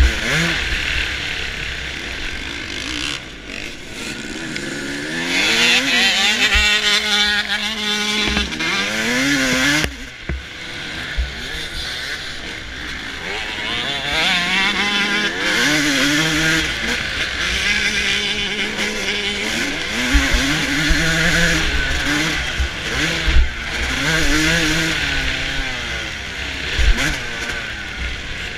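2005 Suzuki RM250 two-stroke single-cylinder motocross engine racing, heard from a camera mounted on the bike, its revs rising and falling over and over through gear changes and throttle at speed.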